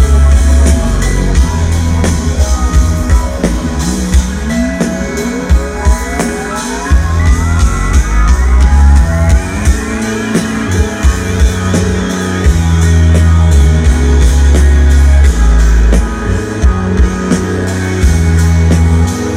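Live electronic band music with a heavy bass line and a drum kit. The bass drops out for stretches and comes back, and a long rising pitch sweep climbs through the middle.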